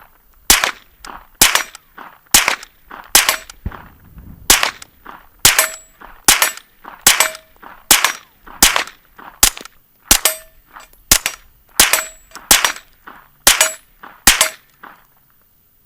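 Suppressed Kriss Vector SDP 9mm pistol fired in steady slow semi-automatic fire, about one shot a second, roughly eighteen shots in all. Several shots are followed by a brief ringing tone. The firing stops near the end.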